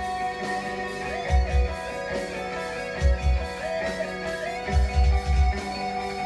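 Background music led by guitar, with sustained notes over deep bass beats every second or two.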